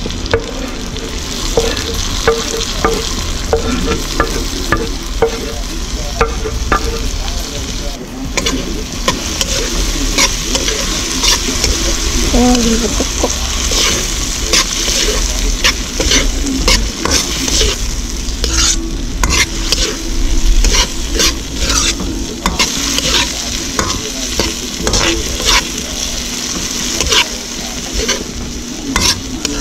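Chopped tomatoes sizzling as they fry in a wok, stirred with a metal spoon that clinks and scrapes against the pan many times.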